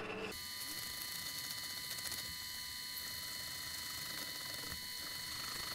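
Small lathe turning POM round stock while a hand hacksaw cuts through it, shown at ten times speed: an even, steady mechanical whine and buzz with no separate strokes.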